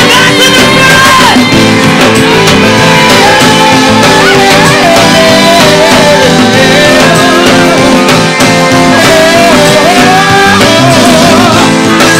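Live worship band playing loudly and steadily, with guitar, and voices singing wavering, drawn-out lines over the music.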